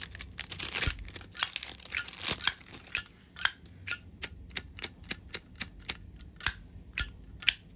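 Zippo lighter being flicked open and snapped shut over and over: a run of sharp metallic clicks, two or three a second, many with a short high ringing ping.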